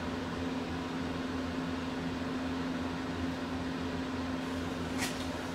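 Steady background hum of a running machine: one constant low tone over an even hiss. A short click comes about five seconds in.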